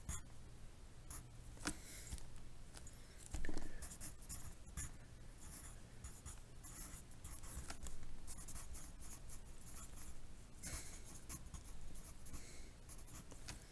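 Pencil scratching on lined notebook paper in short, irregular strokes as numbers and words are written out, over a faint low hum. A brief louder bump comes about three and a half seconds in.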